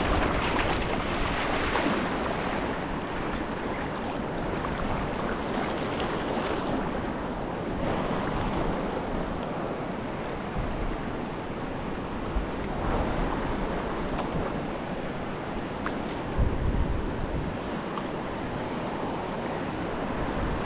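Steady rush of whitewater in a river rapid, with wind rumbling on the microphone and a couple of briefly louder surges of water noise.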